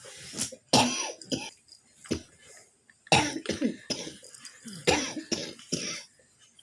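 An elderly person coughing repeatedly, in short fits of one to three coughs spread over several seconds.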